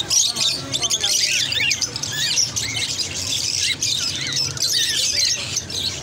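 Many small caged parrots, lovebirds and cockatiels, chirping together: a dense, unbroken chorus of short high chirps overlapping one another.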